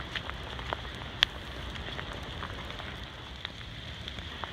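Hard rain falling, with scattered sharp drop ticks close by, the loudest about a second in, over a steady low rumble.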